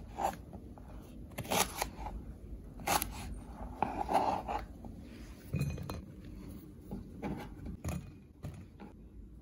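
Kitchen knife slicing Chinese eggplant on a plastic cutting board, the blade knocking on the board in scattered taps with a few soft scrapes. Near the end, the cut pieces drop into a glass bowl.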